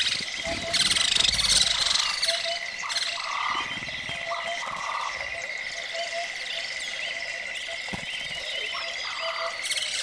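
Frogs calling in a nature ambience: short croaking calls repeat every second or so over a steady high-pitched whine, with fine chirps higher up. Louder for a moment about a second in.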